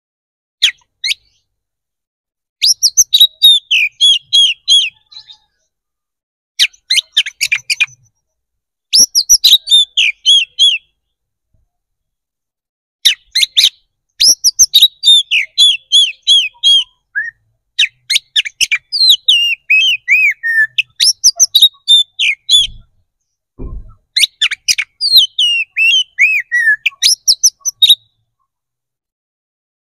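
Oriental magpie-robin singing in full, aggressive song: a string of loud phrases of rapid, varied chirps and whistles, each one to three seconds long, with short pauses between them.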